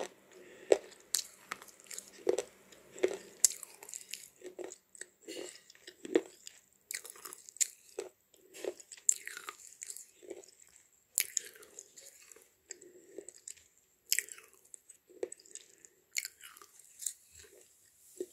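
Slate chips being crunched between the teeth close to the microphone: irregular sharp crunches, roughly one to two a second.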